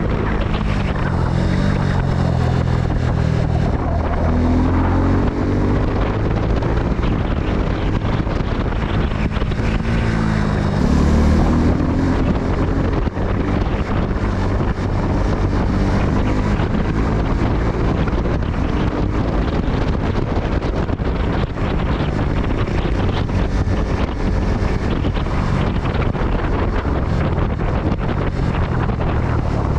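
Suzuki Gixxer 250 single-cylinder engine running at road speed under heavy wind noise on the microphone. The engine pitch climbs twice, about four and ten seconds in, as the bike accelerates.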